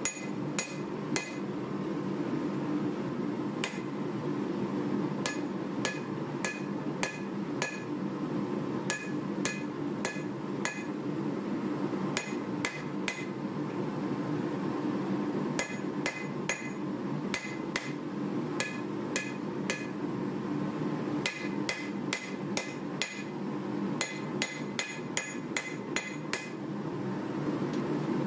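Hand hammer striking a red-hot steel knife blade on a steel anvil in quick runs of three to five ringing blows with short pauses between them. A steady low hum runs underneath.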